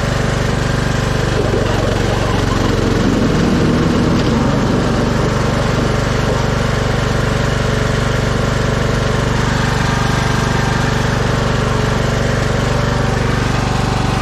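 Craftsman 48-inch riding lawn mower engine running steadily while the mower drives over the lawn. Its note wavers briefly about three seconds in.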